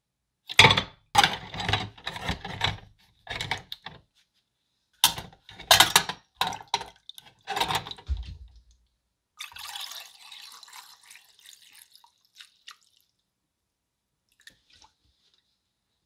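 Metal parts of a hand-crank pencil sharpener are lowered into a tub of liquid, with a run of splashes and knocks in several bursts. About nine seconds in, more liquid is poured in from a jug with a soft, hissing trickle that fades out after a few seconds.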